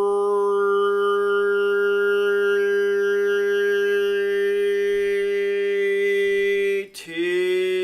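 A man's voice toning one long steady held note, breaking briefly near the end for a breath and starting again on a slightly lower note.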